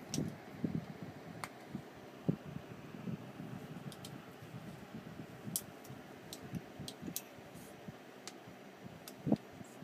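A Scottish Fold cat playing with a brush held out to it: scattered soft thumps and rustles as it bats, grabs and bites at the brush, with a run of light sharp clicks in the middle and a louder thump near the end.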